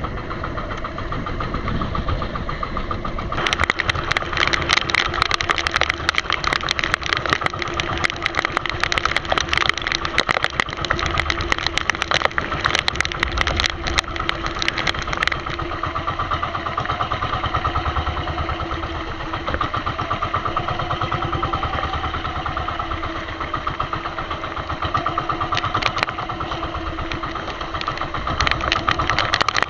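Small fishing boat's engine running steadily with a rapid, even chugging beat, turning harsher about three seconds in.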